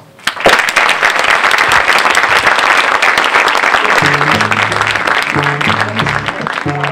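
Audience applauding in a hall at the end of a talk, many hands clapping steadily. About four seconds in, music with a low string bass line comes in under the applause.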